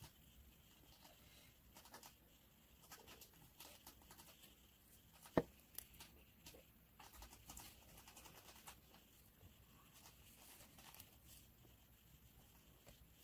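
Faint small clicks and scratches of metal picks and tweezers working seeds out of strawberries on a paper towel, with one sharp click about five seconds in.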